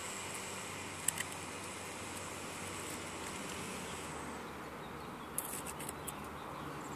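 Blue painter's masking tape being peeled off a car's plasti-dipped front bumper and crumpled by hand: a steady soft hiss, with a couple of light clicks about a second in and a few more near the end.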